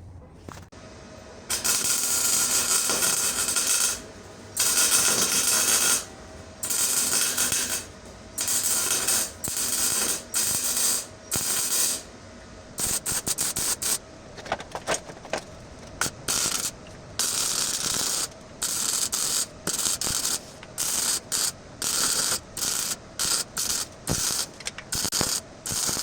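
A loud mechanical workshop tool run in repeated on-off bursts: the first few last about two seconds each, and after that they come shorter and quicker, many under a second.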